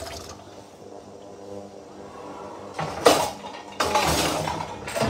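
Clatter of dishes, in two loud bursts about three and four seconds in, over a low steady hum.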